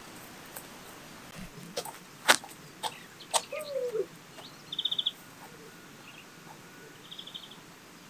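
Birds calling: a brief rapid high trill twice, and a short falling call, with a few sharp clicks in between.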